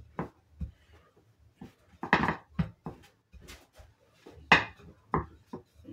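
Wooden rolling pin rolling out bread dough on a wooden table: irregular knocks and rolling strokes as the pin meets the table, the loudest knock about four and a half seconds in.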